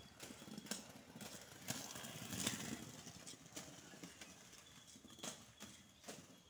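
Skates rolling over a hard surface: irregular clicks and knocks over a low rolling rumble, loudest for about a second starting near the two-second mark.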